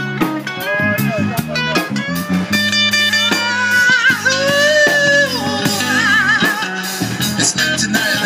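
Street band playing live: an electric guitar lead with bent, wavering notes over a bass line and a drum kit.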